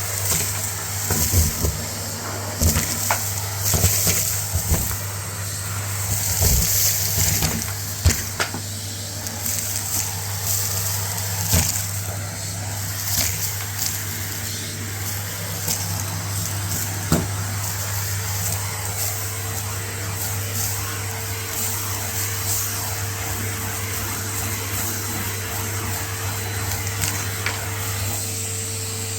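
Numatic Hetty vacuum cleaner running steadily with a low motor hum, sucking up a crunchy dry dirt mix. Grit crackles and clicks sharply through the tool and hose, most often in the first half. A steady tone joins a little past the middle.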